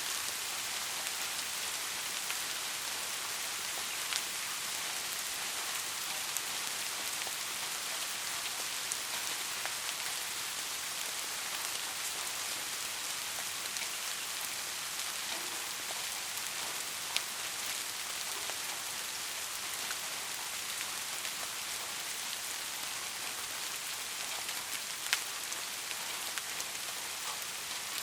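Soft, steady rain falling on a surface: an even hiss with scattered individual drops ticking, a few of them sharper, about four seconds in and again near the end.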